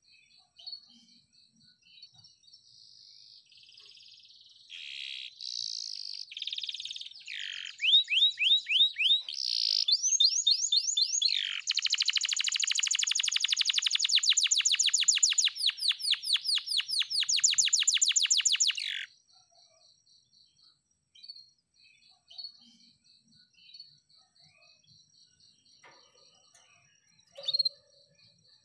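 Canary singing a long song of varied whistled phrases and falling sweeps that builds into a fast rolling trill, then stops sharply about two-thirds of the way through. Afterwards only scattered faint chirps remain over a steady, faint high ticking.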